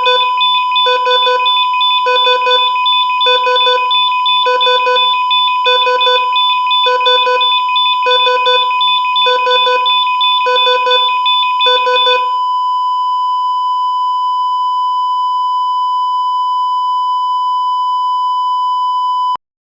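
Heart monitor (EKG) beeping about every two-thirds of a second over a steady tone. About twelve seconds in the beeps stop and a continuous flatline tone holds until it cuts off suddenly near the end; the flatline is the monitor's sign that no heartbeat is detected.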